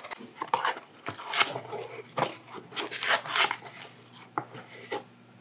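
Metal measuring spoon scraping and tapping inside a nearly empty can of baking powder as it is scooped and levelled: a run of short, irregular scrapes and clicks that thin out near the end.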